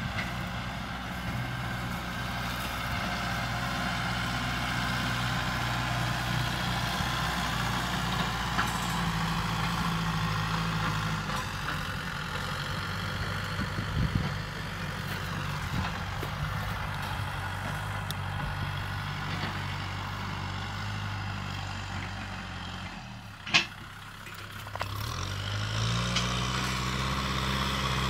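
Kubota M6040SU tractor's diesel engine running steadily under load while pulling a disc plough. About 23 seconds in the engine drops off with a sharp click, then revs back up.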